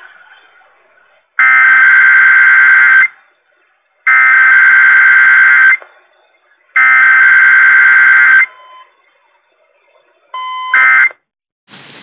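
Emergency Alert System SAME data bursts played over a radio: three identical buzzing bursts of about a second and a half each, a second apart, forming the digital header of a required weekly test. A shorter burst comes near the end, the start of the end-of-message bursts.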